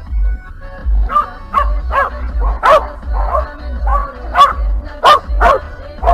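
A dog barking repeatedly in short, sharp barks, starting about a second in, over background music with a steady bass beat.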